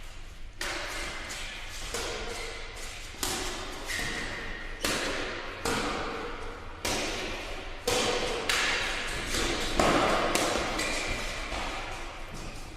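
Badminton rally: rackets striking the shuttlecock about ten times at an uneven pace, roughly once a second, each hit echoing in a sports hall.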